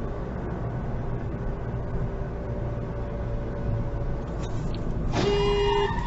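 Car driving with a steady low road and engine rumble, heard from inside the car. About five seconds in, a car horn sounds once for under a second.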